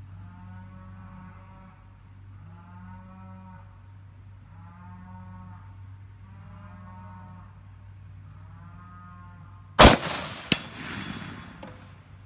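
A single high-powered scoped hunting rifle shot about ten seconds in, with a long echoing tail and a smaller second crack a moment later, followed by a few sharp metallic clicks near the end. Before the shot, a tone that rises and falls repeats about every two seconds over a steady low hum.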